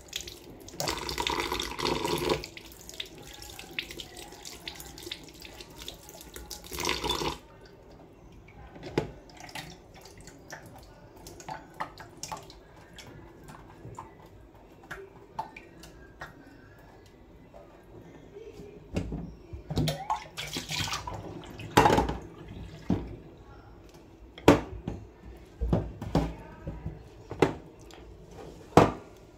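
Kitchen tap running water into a stainless steel sink over chhena curds in a cloth-lined strainer, a rinse with cold water; the flow stops abruptly about seven seconds in. After that come scattered knocks, clicks and drips from handling in the sink, with several sharp knocks near the end.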